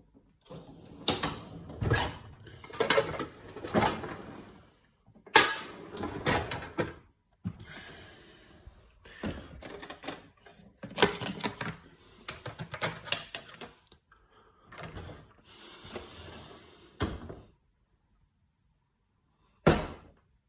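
Hotpoint dishwasher being handled by hand: a run of irregular rattling, clattering bursts with sharp clicks, its door and racks being worked. One last sharp click comes near the end after a short pause.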